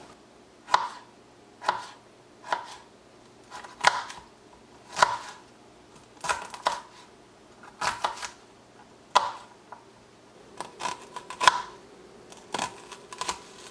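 Kitchen knife slicing vegetables on a plastic cutting board: single sharp cuts about a second apart, quickening into a run of closer cuts near the end.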